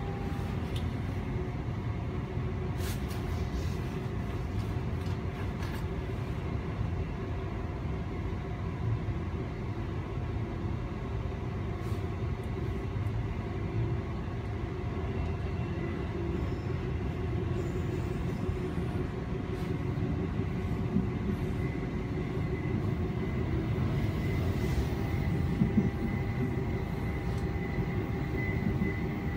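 Queensland Rail SMU 260 electric multiple-unit train running at speed, heard from inside the carriage: a steady low rumble of wheels on track with humming tones over it, and a few short clicks along the way.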